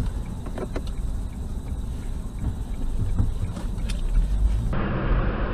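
Car interior road and engine noise recorded by a dashcam: a steady low rumble with a few faint ticks. Near the end it cuts abruptly to a louder, hissier road noise from another dashcam recording.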